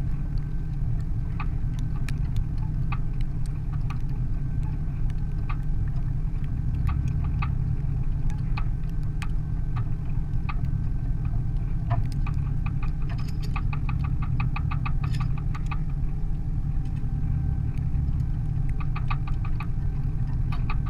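Old red yard truck's engine running steadily with a low rumble, with scattered clicks and, twice, a short run of rapid ticking or rattling over it.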